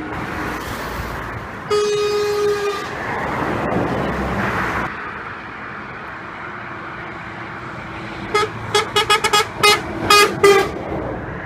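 Truck horns sounding by the road: one horn blast about a second long near the start, then the noise of a passing vehicle, then a rapid string of about eight short toots near the end.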